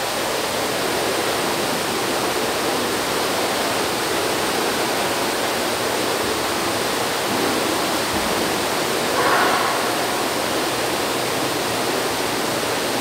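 Steady rushing noise like running water, unchanging throughout, with a brief voice about nine seconds in.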